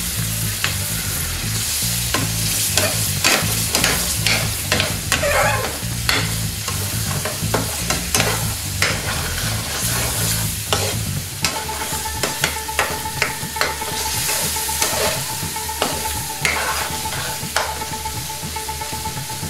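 A metal chef's spoon stirs and scrapes a thick curry sauce in a steel frying pan, clicking against the pan, while the sauce bubbles and sizzles over a gas flame as it simmers down to thicken. A steady tone joins about halfway through.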